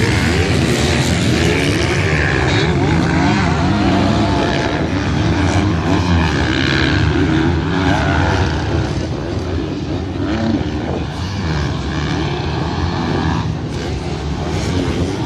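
Several MX2 motocross bikes racing, their engines revving up and down over one another without a break.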